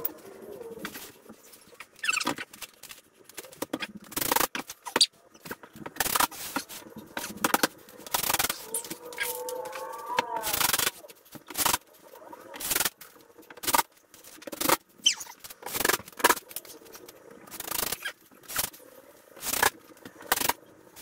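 Cordless drill driving screws through drywall into the wall framing: a string of short bursts, about one a second, each a quick whir and bite as a screw sets into the board.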